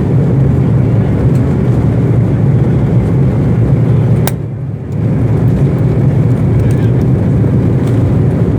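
Steady low roar of an airliner's cabin noise in flight, with a click and a brief dip in the noise a little past halfway.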